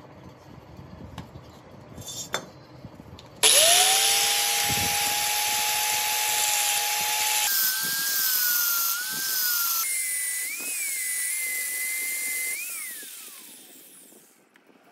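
A small electric power tool starts suddenly a little over three seconds in, its whine rising as it spins up over a loud hissing noise. The whine jumps higher twice, then falls away as the tool winds down near the end.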